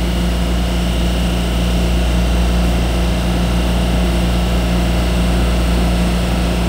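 Electric multiple-unit commuter train moving slowly along the platform, giving a steady low hum of several unchanging tones over a noisy rumble.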